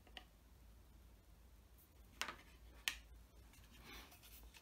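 Near-silent room with a few light clicks and taps of metal tweezers handling a decal on a cutting mat, two sharper clicks about two and three seconds in.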